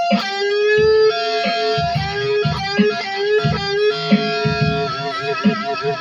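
Electric guitar with a floating Floyd Rose tremolo: a note held steady while other notes are picked and bent around it, with vibrato near the end and lower notes picked underneath. The held note stays in pitch while the other strings bend, which the player puts down to the bridge being balanced by five springs.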